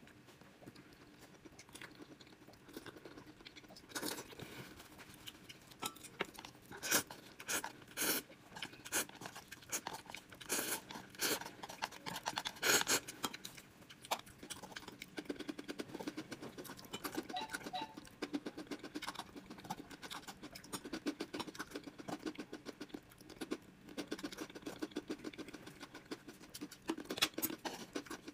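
Close-miked eating of spicy instant noodles: chewing and slurping with many short, irregular wet mouth clicks and crackles. Utensils now and then scrape on the tray.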